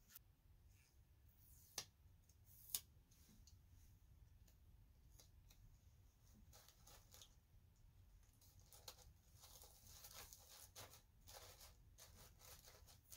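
Faint paper-handling sounds: blue tissue paper being smoothed down inside a kraft cardboard mailer box and a round sticker pressed onto it. Two sharp taps about two and three seconds in, then soft rustling and crinkling, busiest near the end.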